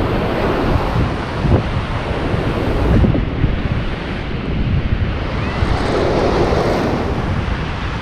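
Surf breaking and washing over shoreline rocks, with gusty wind buffeting the microphone.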